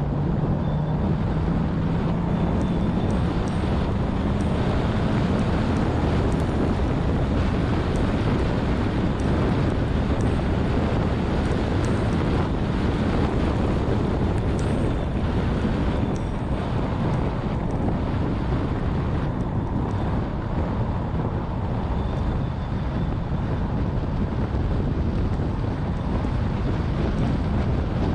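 Wind buffeting the microphone of a car-mounted action camera at track speed, over a steady rumble of road and tyre noise. A Porsche's engine note rises in pitch during the first few seconds as the car accelerates.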